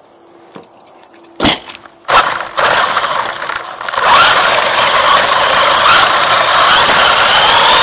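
WLToys 144001 RC buggy heard from a camera mounted on it: two sharp knocks, then about four seconds in the electric motor and gear drive break into a loud whine that rises in pitch as the car speeds up, over a rush of tyre noise on asphalt.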